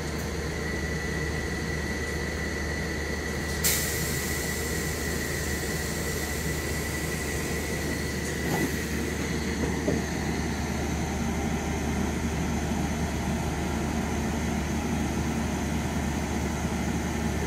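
Enterprise passenger train, propelled by a 201 Class diesel locomotive, pulling out of a station with a steady diesel rumble. A steady high tone sounds for about the first eight seconds, with a sharp click about three and a half seconds in and a couple of knocks as the coaches move off.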